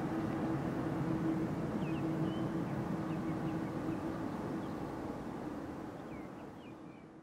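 Airliner jet engines heard from afar at taxi power: a steady rumble with a held hum, and a few faint high chirps. The sound fades out over the last few seconds.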